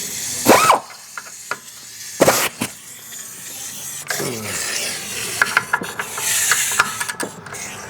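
Wrench on the rusty upper control arm bolt of a rear suspension: scattered metal clinks and knocks with scraping in between.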